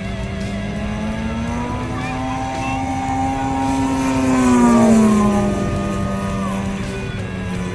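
Gasoline engine and propeller of a 110cc large-scale MXS aerobatic RC plane in flight, running steadily, then growing louder as it passes close about five seconds in, its pitch dropping as it goes by.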